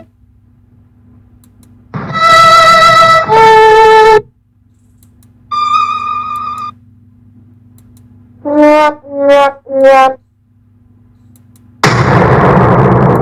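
Short sad-themed sound-effect clips played one after another. First comes a two-note falling brass sting, then a brief higher tone, then three short falling brass notes like a sad-trombone "wah-wah-wah". Near the end a loud noisy burst starts and slowly fades away.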